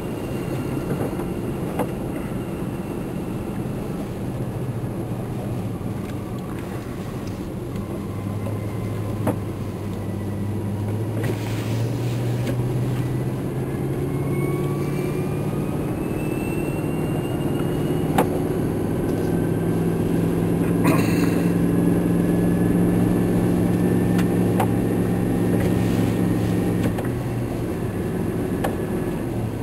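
Vehicle engine running while driving, heard from inside the cab; its pitch climbs as it speeds up about ten seconds in, then holds steady.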